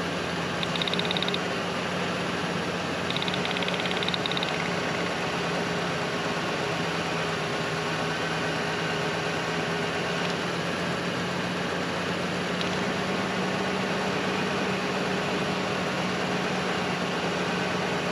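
1996 Ford Ranger's 3.0 L V6 idling with a misfire, a steady hum that points to one dead cylinder. Two brief high buzzing bursts come in the first few seconds.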